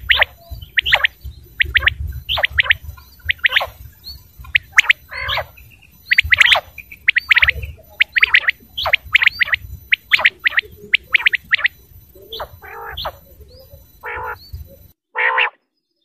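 Common quail calling: short, sharp notes repeated over and over in quick groups of two or three, with a few lower, rougher notes near the end. A low rumble runs underneath and stops shortly before the end.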